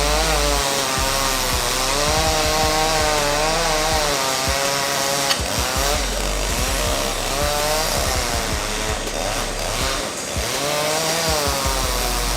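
Chainsaw running hard while cutting wood, its engine pitch wavering up and down as it works through the cut.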